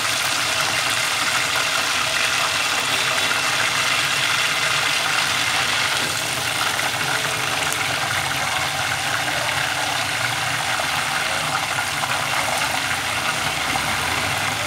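Chicken drumsticks deep-frying in a pot of hot oil: the oil bubbles around them with a steady sizzle.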